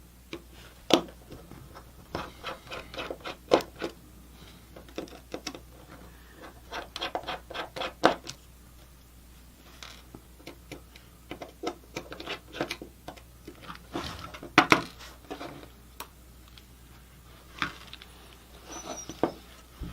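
Irregular clicks and taps of a small screwdriver backing out the tiny screws that hold a mini PC's heat sink, with parts being handled; some come in quick runs of several clicks.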